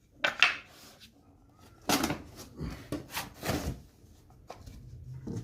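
Sharpening stones and their boxes being handled: a handful of short knocks and clacks with scraping between them, the loudest cluster about two to four seconds in.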